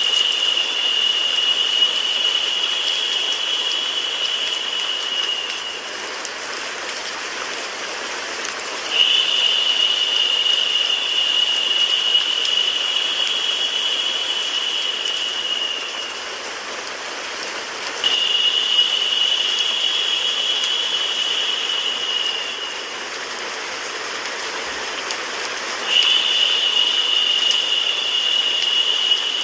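Steady rain-like white noise, with a narrow, higher-pitched hiss that comes in for five to seven seconds at a time and drops out again, four times over, making it louder each time it sounds.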